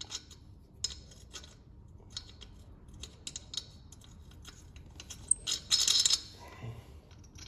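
Light metallic clinks and taps of wheel bolts being handled, with a louder metallic rattle about six seconds in.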